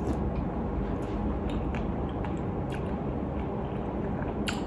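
Close-up mouth sounds of someone eating a spoonful of tapioca-and-coconut-milk dessert topped with crushed peanuts: soft chewing with a few faint, scattered clicks.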